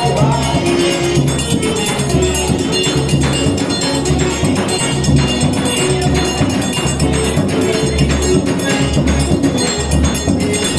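Forró dance music with a steady bass beat, bright rhythmic jingling percussion and held instrument notes.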